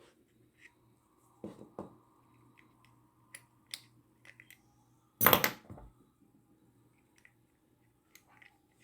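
Small clicks and taps of lock parts and tools being handled during reassembly of an ABUS 7140 lockout padlock, with one louder clatter a little past five seconds in.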